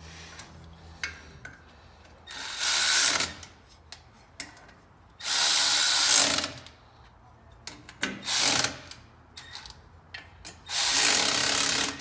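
Handheld power tool running in four short bursts of about a second each, with light clicks and clinks of tools between.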